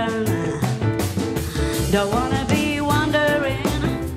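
Live small-group jazz playing: a melody line over a rhythm section of bass and drums.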